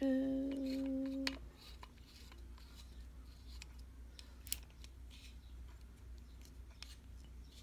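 A short held vocal hum, then faint scattered clicks and light scraping as a halogen light bulb is screwed into a lamp socket.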